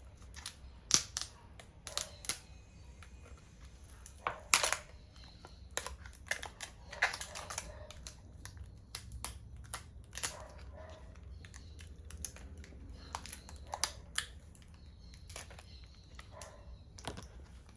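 Scattered taps, clicks and plastic crinkling from hands handling a replacement MacBook Pro battery and peeling the plastic liner off its adhesive underside. The sharpest taps come about a second in and at about four and a half seconds.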